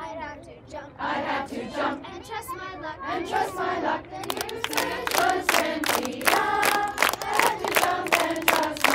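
A group of girls singing a campfire action song together. From about four seconds in, the song is joined by rhythmic hand clapping in time.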